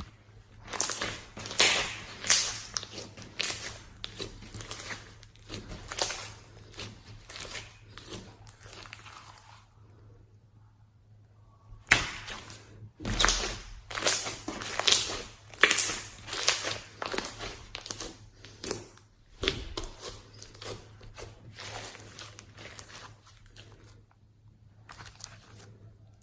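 Slime being squeezed and pressed by hand, giving dense runs of crackling, crunching pops. There is a short pause a little under halfway through before the crackling picks up again.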